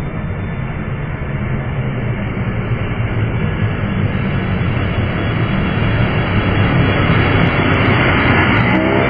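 Model J-10 jet flying a low pass, a steady loud rushing jet noise that grows louder toward the end as it comes closer.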